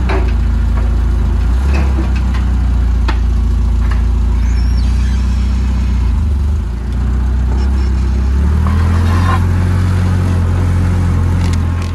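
Toyota forklift's engine running as it is driven, a steady low drone with a few light knocks. The drone eases off about six and a half seconds in and picks up again a couple of seconds later.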